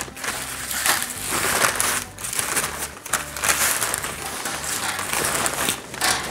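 Fresh spinach leaves and a paper bag rustling and crinkling in uneven bursts as the greens are handled and bagged.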